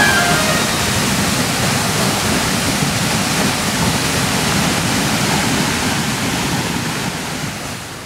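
Steady rushing roar of a tall waterfall plunging into the pool below, fading out near the end.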